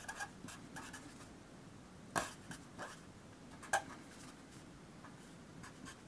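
Pen writing on paper: a series of short scratching strokes as letters and numbers are written, the sharpest about two seconds in and again near four seconds.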